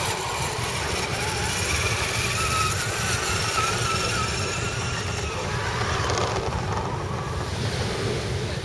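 Small electric motors and gears of RC scale crawler trucks whining in wavering tones as they drive past, over a steady low rumble of wind on the microphone.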